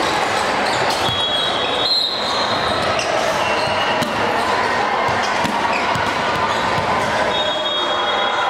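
Busy multi-court gym din: balls thudding on the hardwood floor from several courts, voices in the hall, and a few brief high-pitched squeaks or whistle tones. The sound echoes in the large hall.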